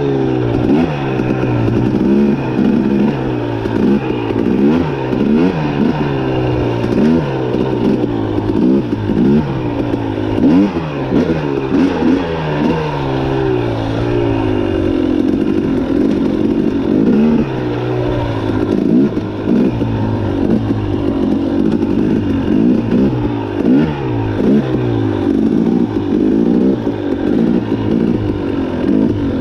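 Dirt bike engine revving up and down without a break, the pitch climbing and dropping every second or so as the throttle is opened and shut through the turns and gear changes of an off-road trail ride.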